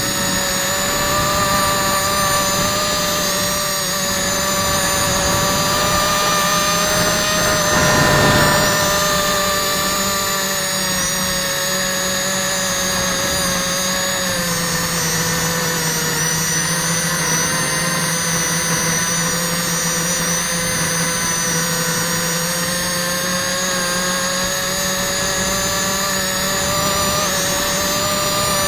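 Quadcopter's electric motors and propellers whining steadily in flight. The pitch drifts up and down with the throttle, with a brief louder surge about eight seconds in.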